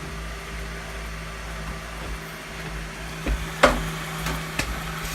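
Desktop PC running with a steady hum from its fans and drives while Windows XP setup loads from CD. Several sharp clicks and knocks come in the second half.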